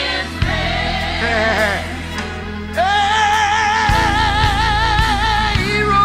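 Gospel song: vocals sung with vibrato over a band. About three seconds in, a voice holds a long wavering note.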